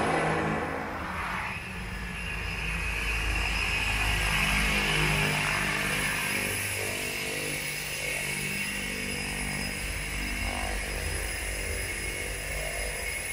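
Cessna Caravan's single PT6A turboprop engine and propeller running steadily as the plane taxis, a constant high turbine whine over a low drone, a little louder for the first second and a half.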